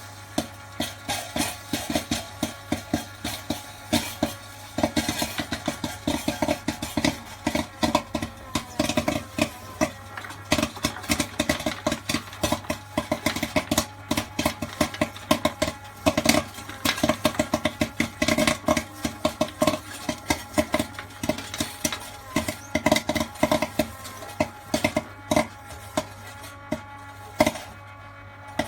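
Popcorn kernels popping in an electric popcorn machine: a dense run of sharp, irregularly spaced pops, several a second, over the machine's steady hum.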